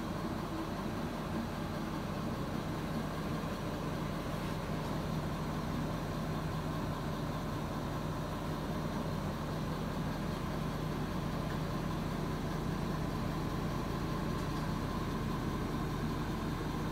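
Steady machine hum with a constant low tone and a fainter higher tone, unchanging throughout.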